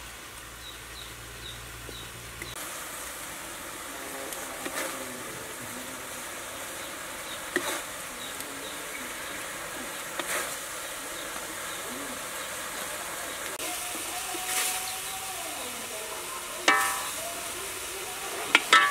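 Spatula scraping and knocking in a wok over a light sizzle as stir-fried beef is scooped out onto a plate. It ends with two sharp ringing clangs of the spatula on the pan.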